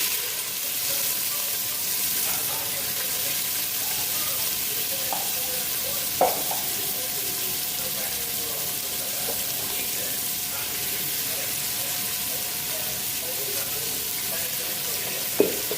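Green peppers and onions sizzling in hot oil as they sauté, a steady frying hiss. Two short sharp knocks come about six seconds in and again near the end.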